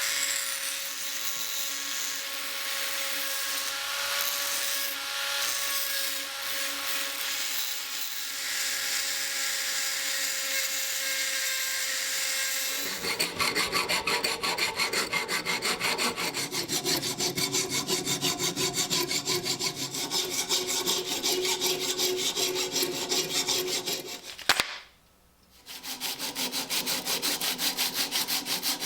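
A power tool hums steadily for the first half. Then a hand tool is worked over wood in quick, even back-and-forth strokes, like sawing or rasping, with a short break near the end.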